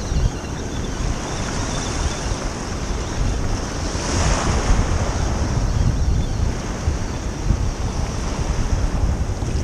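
Wind buffeting the microphone over small waves washing onto a pebble beach, with one wave surging in louder about four seconds in.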